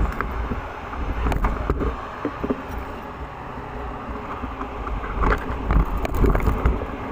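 KTM enduro dirt bike running at low speed on a rough trail, with knocks and rattles as it goes over bumps, thickest about five to six and a half seconds in.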